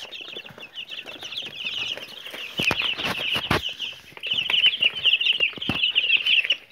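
A brood of young quail and chicken chicks peeping continuously in high-pitched chirps, with a few sharp knocks about halfway through.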